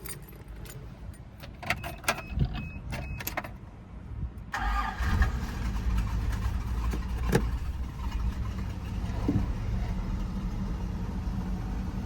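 Toyota FJ60 Land Cruiser's 2F inline-six cold-starting. A few clicks come first, then about four and a half seconds in the starter cranks briefly and the engine catches. It settles into a steady idle, its exhaust leak repaired.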